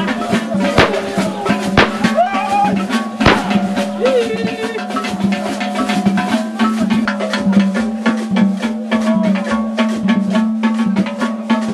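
Music driven by fast, steady drumming and percussion, with a steady low hum underneath. A few louder sharp hits stand out in the first few seconds.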